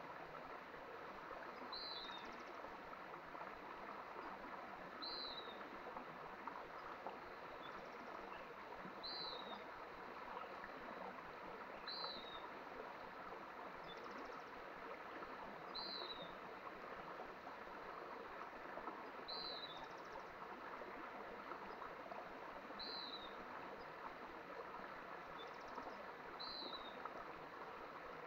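Mountain stream flowing steadily, with a single bird repeating a short, high call that drops in pitch about every three to four seconds.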